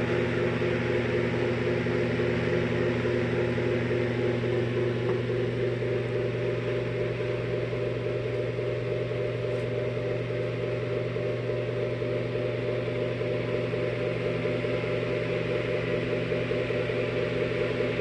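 A roughly century-old Westinghouse electric table fan, freshly rewired and oiled, running steadily: a constant motor hum under the even whir of the spinning blades.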